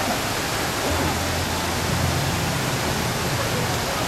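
Steady rush of falling and splashing water, an even hiss with no breaks.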